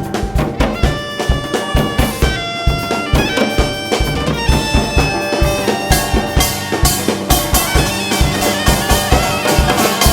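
Live Korean traditional fusion band playing. A drum kit keeps a fast, steady beat under long held melody notes from a wind instrument.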